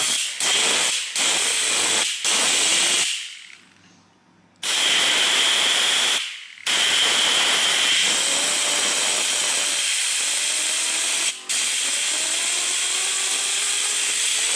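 Compressed-air blow gun hissing against a 3D-printed PLA wheel on a metal axle, spinning it up. It comes in several short blasts over the first three seconds, a break of about a second and a half, then long blasts, with a faint whine rising in pitch as the wheel speeds up.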